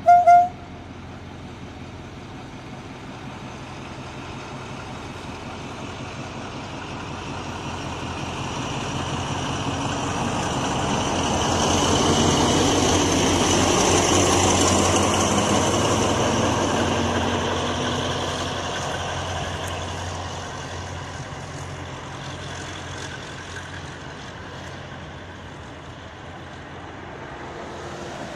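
TCDD DE 24000-class diesel-electric locomotive passing close by, its diesel engine growing louder to a peak about halfway through as it goes past, then fading as it moves away down the track. Two very short horn toots right at the start.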